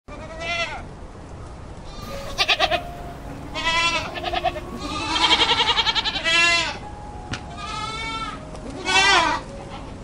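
Goats bleating: about seven separate calls, several with a quavering, wavering pitch, the longest lasting around a second midway through.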